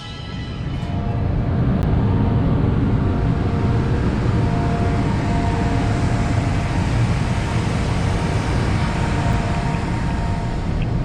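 Steady low rumble of a car ferry under way, heard on board, with a faint steady whine above it. It swells up over the first couple of seconds.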